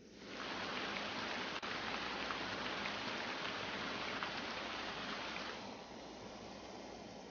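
Rain falling steadily on a surface, a dense hiss full of small drop ticks; it starts suddenly and eases off about five and a half seconds in.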